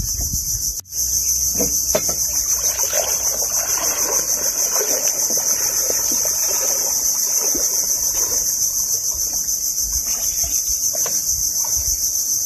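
Loud, high-pitched insect chorus, steady with a fast pulse, that drops out briefly about a second in. Under it are scattered light knocks and faint water trickling and splashing.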